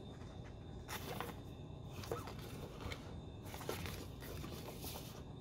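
Paper rustling as the pages of a printed quick start guide are handled and turned: short rustles about a second and two seconds in, and a longer spell near the end.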